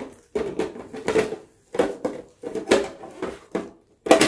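Hard plastic toy pieces knocking and rattling as they are handled and fitted into a plastic toy lab case. They come in a run of short clatters with brief gaps, the loudest near the end.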